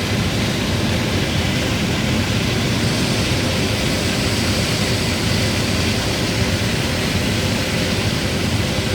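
Case IH 9250 combine harvester running steadily while harvesting corn: a constant engine and threshing noise with a low hum and no change in load.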